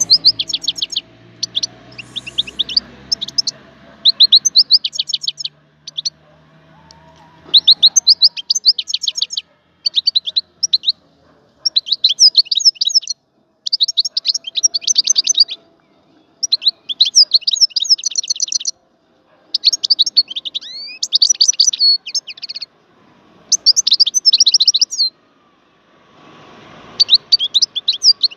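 Wild European goldfinch singing: phrases of rapid, high twittering notes, each a second or two long, repeated with short pauses between.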